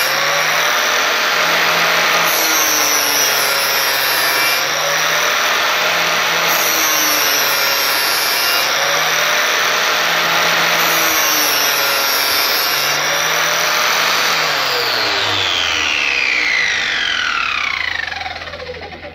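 Angle grinder with a 60-grit flap disc grinding the bevel of a new steel lawnmower blade held in a sharpening jig. Its pitch rises and falls gently every couple of seconds. About fifteen seconds in the motor winds down, its whine falling steeply as the disc coasts to a stop.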